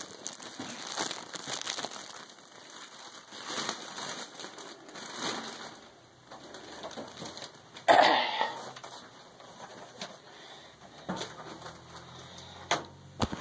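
Plastic packaging crinkling and rustling as it is handled and pulled off, in uneven bursts, with a louder rustle about eight seconds in and a couple of sharp knocks near the end.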